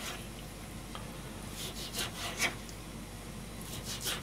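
Chef's knife slicing through raw chicken breast in drawn strokes: short rasping cuts, a cluster about two seconds in and another near the end.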